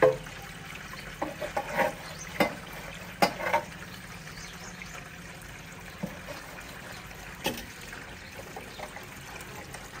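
Water trickling while the clear plastic shelves and trays of a fridge are washed by hand. Light clicks and knocks come from the plastic parts being handled and set down, mostly in the first few seconds.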